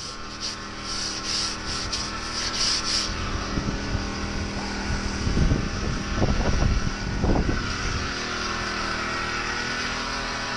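A stiff hand brush scrubbing a knobby cyclocross tyre, several quick strokes in the first three seconds and a few louder rubs and knocks midway, over the steady hum of a portable generator running.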